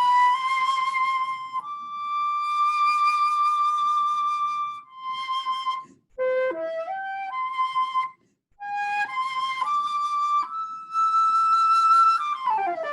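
Solo flute playing a slow melody of long held notes with a slight vibrato, broken by short pauses between phrases, and sliding down in pitch near the end.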